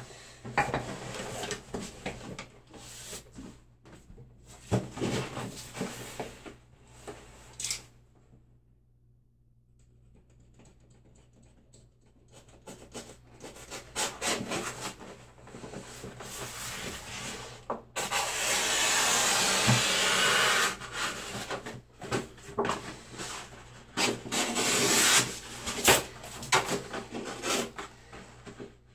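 Hand rubbing and scraping of paste-the-wall wallpaper being pressed and smoothed onto the wall around a window frame, with paper rustling in irregular strokes. There is a pause of about four seconds a third of the way in, and a little past halfway comes the loudest stretch, about three seconds of steady scraping.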